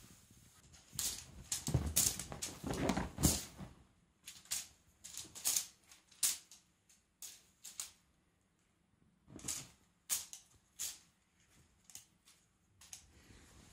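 A cat playing with a feather wand toy on a fabric-covered sofa: a busy run of thumps, scuffs and rustles in the first few seconds as it pounces, then scattered short scratchy scuffs of paws and toy on the cloth.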